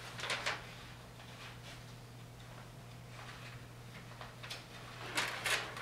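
Papers being handled and rustled on a table in short bursts, once just after the start and again near the end, over a steady low hum.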